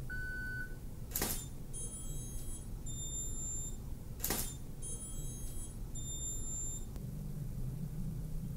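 A camera shutter fires twice, about three seconds apart, with the Yongnuo YN-560III speedlights flashing. After each shot comes a high-pitched whine in two spells as the flashes recharge. A short beep sounds right at the start.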